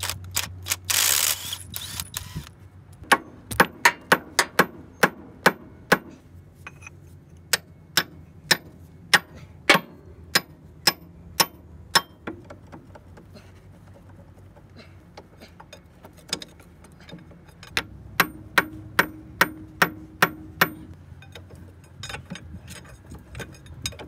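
A cordless impact wrench hammers for a moment about a second in, then a hammer strikes a steel drift on an excavator track roller's mounting in a run of sharp metallic blows, about two a second. The blows stop for several seconds and resume for a shorter run later on.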